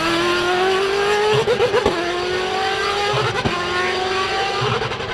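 Williams Formula 1 car's V8 engine pulling away, its note climbing in pitch and dropping with each upshift, three times, with a short crackle at each shift.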